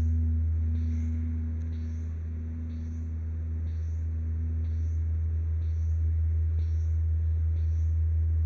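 Instrumental music: a loud sustained low drone under a mid-pitched tone that fades out about halfway, with a soft high tick repeating about once a second.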